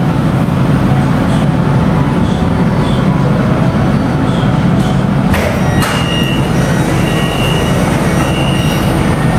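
Interior of a Siemens Inspiro MRT train with a steady low rumble. About five seconds in there are two sharp clicks as the doors release, followed by three high beeps about a second apart as the doors open.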